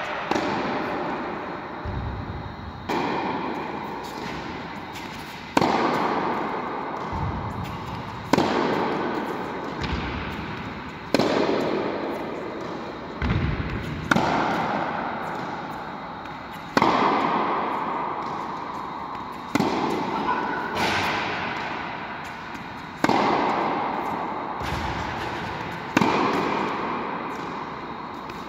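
Tennis racket strokes in a steady rally: a sharp hit about every three seconds, each ringing on with a long echo through a large indoor tennis hall, with softer thuds between some of the hits.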